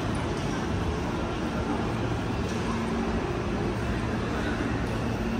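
Hankyu electric train noise: a steady rumble with a faint low hum that comes in about two seconds in.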